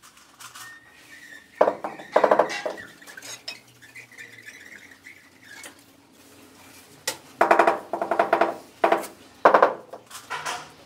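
Floor-tiling tool noise: rapid runs of sharp, ringing knocks as hard tools strike ceramic tile and the adhesive bucket, a short run about two seconds in and a longer one from about seven to ten seconds.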